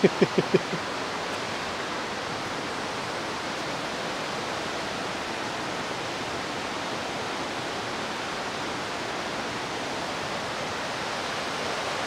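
Waterfall and rocky stream running high after heavy rain: a steady rush of white water, a little louder near the end.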